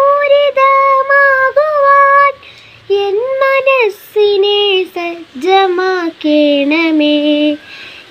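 A young girl singing a Malayalam prayer song about mathematics solo, in long held notes with short breaks, the melody sitting higher in the first half and falling lower toward the end.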